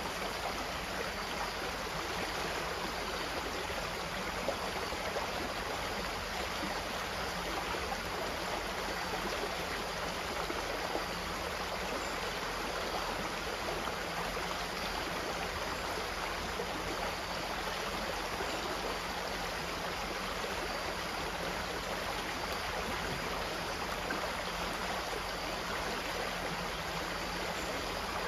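Stream water flowing and babbling at a constant level.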